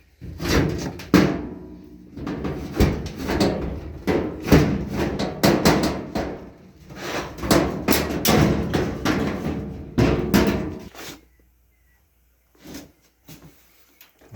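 Repeated knocking and clattering on the washer's sheet-metal cabinet as its top panel is worked loose and pulled off, stopping a few seconds before the end with a couple of small clicks after it.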